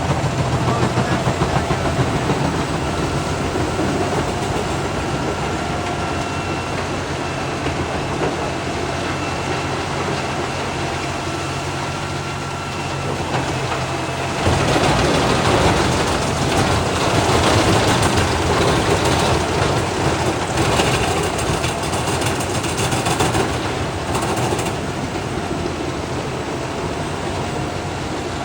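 Large wood chipper's engine running steadily, with a louder, noisier stretch of about ten seconds starting about halfway through.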